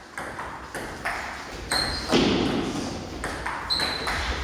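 Table tennis ball clicking back and forth off paddles and table in a fast doubles rally, about two to three hits a second, with one harder hit a little after two seconds. Two short high squeaks come in between the hits.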